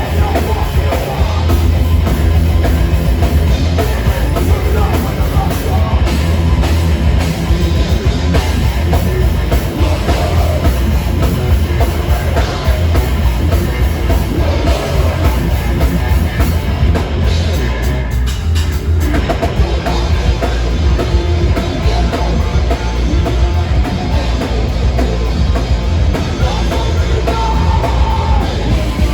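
Live heavy metal band playing loud and without pause: drum kit pounding under distorted guitars and a heavy bass low end.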